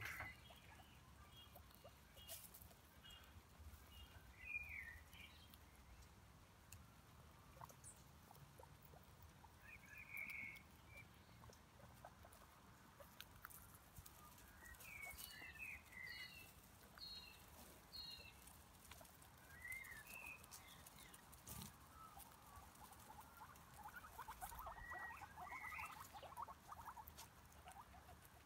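Guinea pigs nibbling grass and shuffling through dry leaves and bark mulch: faint soft rustles and crunches, busier near the end. Short high chirps come every few seconds.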